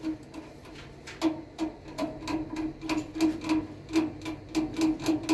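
A run of sharp clicks inside an open condensing boiler under repair, each with a short low buzz. They come about three a second, unevenly spaced, starting about a second in after a single click at the very start.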